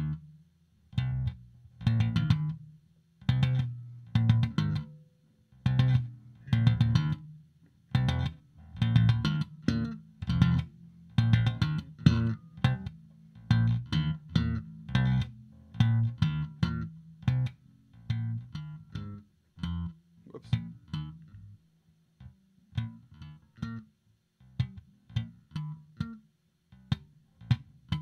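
Solo electric bass guitar improvising in E flat: plucked notes in short groups with brief silences between them, growing sparser in the last several seconds.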